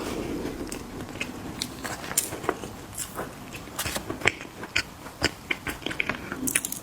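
Close-up mouth sounds of someone chewing mini cookies: many small, irregular crisp crunches.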